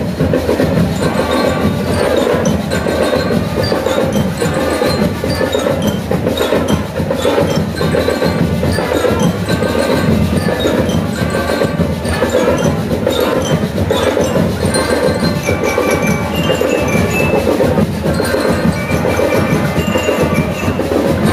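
School marching band playing: brass (trumpets and trombones) and ringing bell lyres over a steady, clicking percussion beat.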